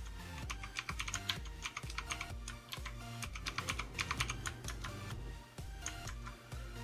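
Keys of a Yeyian Spark 2000 mechanical keyboard with clicky Outemu Blue switches being pressed in quick, irregular runs of clicks, over background music.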